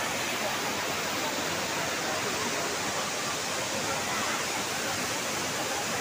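Steady rushing of a waterfall and its cascading stream.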